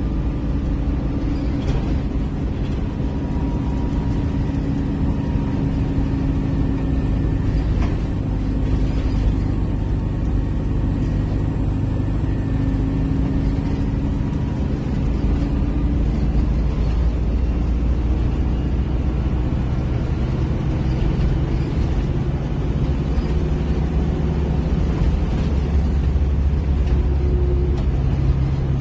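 Detroit Diesel engine of a Flxible Metro transit bus running steadily with no exhaust tip fitted, a loud low rumble heard from inside the passenger cabin. Its note shifts lower and fuller about two-thirds of the way through.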